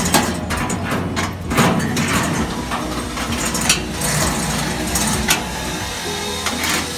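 Metal conveyor chain links and fittings clinking and knocking against the stainless-steel frame as the chain is handled and fitted, with several sharper clanks, over a steady low hum.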